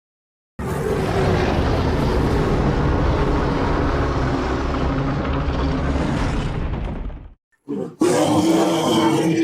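Custom monster roar sound effect mixed from Godzilla and King Kong film roars and animal roars: one long rough roar of about seven seconds that cuts off, then after a short gap a second roar begins near the end.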